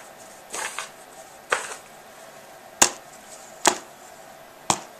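Paracord keychains with metal key rings and clasps set down one after another on a tabletop: about five short, sharp clicks and knocks at irregular intervals.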